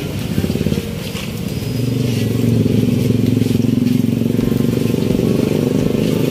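An engine running, growing louder about two seconds in and then holding steady.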